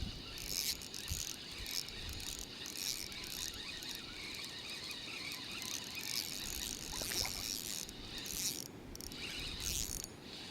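A spinning reel being cranked to bring in a hooked pike, its gears whirring and clicking in irregular spells.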